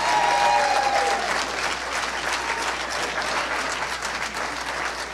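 Audience clapping, loudest in the first second or two.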